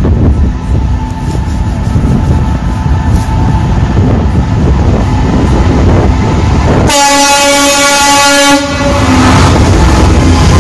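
Class 66 diesel freight locomotive approaching and passing with a container train, its EMD two-stroke engine and wheels rumbling throughout. About seven seconds in it sounds its horn for about a second and a half.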